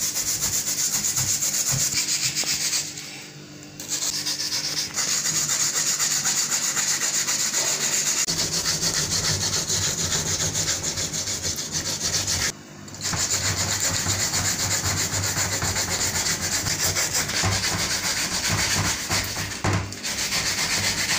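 Peeled water yam grated by hand on a perforated plastic grater over a plastic bowl: fast, continuous rasping strokes, with brief pauses about three seconds in, about halfway through, and near the end.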